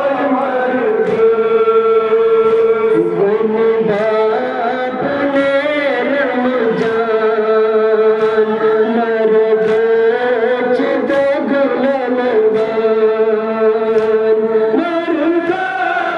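A Muharram nauha: a male voice chanting in long, held notes through a loudspeaker, with sharp slaps of chest-beating (matam) from the mourners at intervals.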